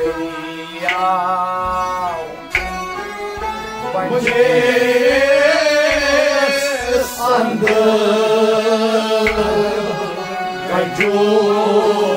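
Kashmiri Sufi folk music: a bowed sarangi and a plucked rabab playing together, with a man singing a wavering line through the middle. Sharp strokes fall every second or two.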